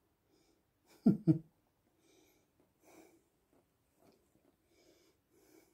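A person's voice making two short wordless sounds about a second in, then soft breathing close to the microphone.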